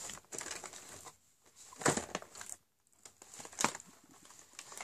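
Cardboard advent calendar being handled: rustling and crinkling, with three sharper knocks or crackles spaced over the few seconds.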